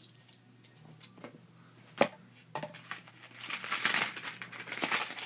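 Earbud packaging being handled and rummaged through: a sharp click about two seconds in, then loud crinkling and rustling of the box's paper and plastic contents through the second half.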